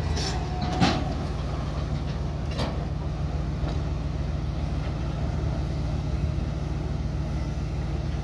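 Heavy diesel plant engine running steadily at a low, even idle, with a sharp knock about a second in and a fainter click about two and a half seconds in.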